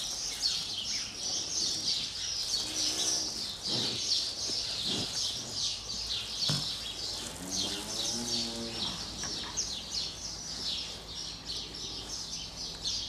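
Cattle mooing: one drawn-out, arching moo about eight seconds in and a shorter call near three seconds, over constant chirping of many small birds. A few sharp knocks come in between.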